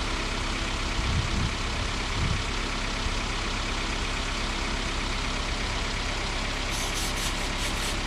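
Small car's engine idling steadily with the air-conditioning compressor running, during a refrigerant charge. Near the end comes a quick run of light clicks.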